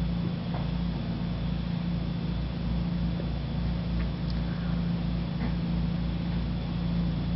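Engine of a trailer-mounted pressure washer running steadily at a constant drone while its lance sprays the pavement.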